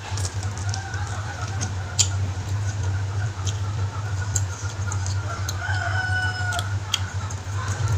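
Chickens clucking with a rooster crowing about three-quarters of the way through, over a steady low hum. Scattered sharp clicks and smacks come from someone eating goat meat off the bone by hand.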